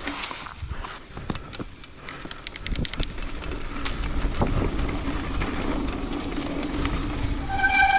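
Mountain bike ridden over a dirt trail: a quick run of freehub ticking while coasting, then tyre rumble and a steady hum that grows louder, with a high-pitched squeal starting near the end.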